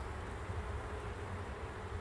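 Honeybees buzzing steadily around an open hive, a low, even hum from the colony.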